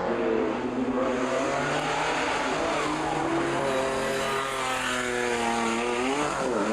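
Rally car engine being driven hard, its pitch rising and falling repeatedly as it revs up and changes gear.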